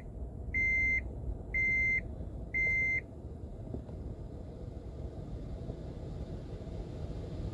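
Three identical electronic beeps, about one a second, each a steady high tone under half a second long, stopping about three seconds in; a low, even hum runs underneath.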